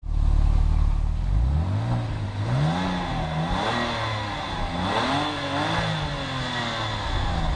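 Porsche 911 Turbo's twin-turbocharged flat-six idling, then blipped through several rising and falling revs.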